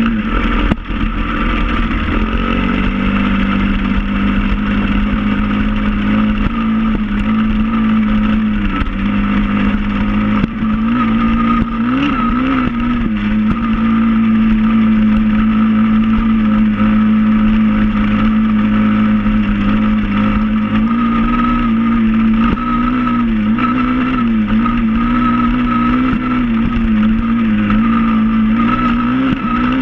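SSR 110 pit bike's single-cylinder four-stroke engine running at steady cruising revs while under way, its pitch wavering slightly with the throttle, with a brief dip in loudness about a second in.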